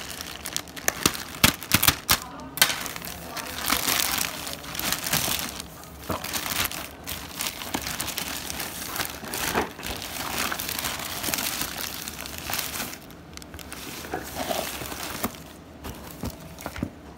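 Plastic courier packaging crinkling and crackling as hands handle and open it, with product boxes shifted about. The sharpest crackles come in the first few seconds, and the handling grows quieter near the end.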